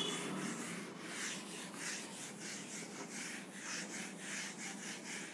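Whiteboard duster wiped back and forth across a whiteboard: a faint, even run of rubbing strokes, about three a second.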